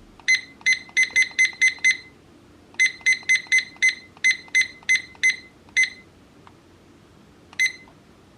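A digital weather clock's buzzer giving short, high beeps in quick, uneven runs: seven, a pause of about a second, ten more, then a single beep near the end.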